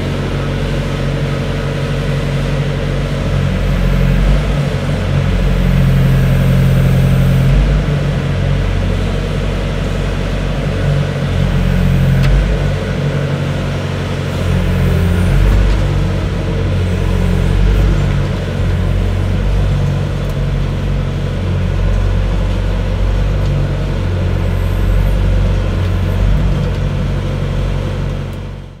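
Volvo ECR88 Plus compact excavator's diesel engine running, heard from inside the operator's cab, its note and loudness shifting now and then as the arm and bucket are worked by the hydraulics. The sound cuts off abruptly at the end.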